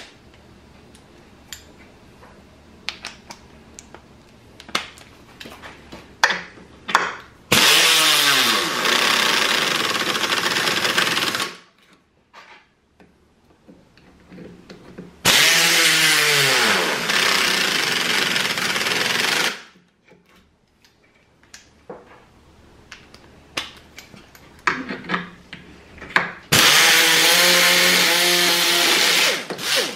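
A 3/8-inch pneumatic air ratchet runs three times, about four seconds each, driving lag screws into a wooden board. Each run starts with a drop in pitch, then holds steady. Between the runs come scattered clicks and knocks from handling the tool and screws.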